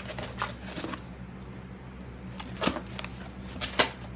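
Cardboard shipping box being opened by hand: its flaps rustle and scrape, with two sharp taps about a second apart near the end.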